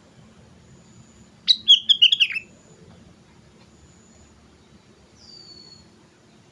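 Sooty-headed bulbul singing one short, loud phrase of several quick whistled notes about a second and a half in, followed near the end by a single faint falling whistle.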